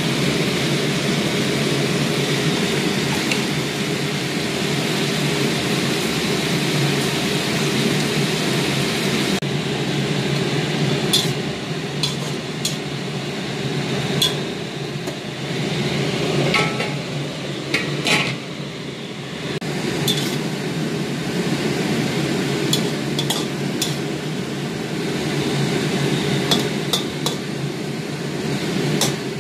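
Cabbage stir-frying in a wok: a metal spatula scrapes and clinks against the wok over a steady rushing noise. The clinks come in the second half, a few at a time.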